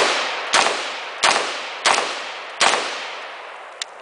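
H&K G36C rifle (5.56 mm) fired in single shots, one right at the start and four more about two-thirds of a second apart, each trailing off in a long echo. A faint click near the end.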